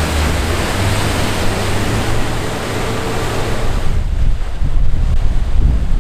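Triple Mercury 400 outboard engines of a Fountain center console running at speed with a steady low drone, under the hiss of rushing water and spray. About four seconds in the sound changes suddenly to gusty wind buffeting the microphone over choppy water.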